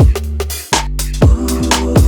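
Electronic background music with a heavy bass line and a steady kick-drum beat.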